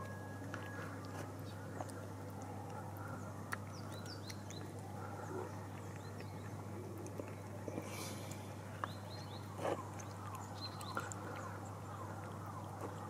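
Cat chewing wet food from a plastic tub: irregular small wet clicks and smacks of its jaws and tongue.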